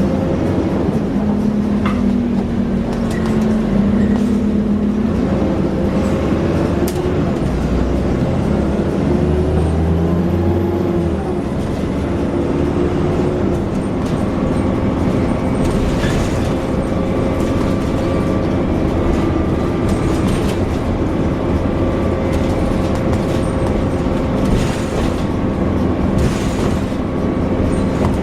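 Alexander Dennis Enviro400 double-decker bus's engine and drivetrain running under way. The pitch shifts and steps through the first half, then settles into a steady whine from about halfway.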